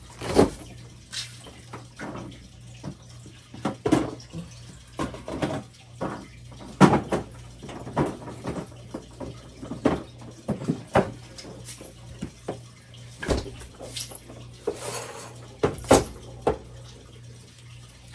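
Scattered knocks and clatter of kitchen things being handled as an egg carton is taken out of the refrigerator and set on the counter, over a steady low hum.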